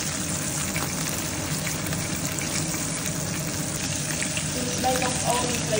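Whole fish deep-frying in hot oil in a pan: a steady sizzle with many small crackles.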